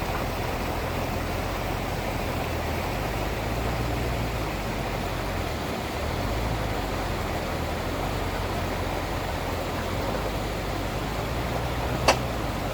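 FJ80 Land Cruiser with a swapped-in 6.0 LS V8 driving over a bumpy dirt trail: a steady low engine drone under tyre and road noise. There is one sharp knock near the end.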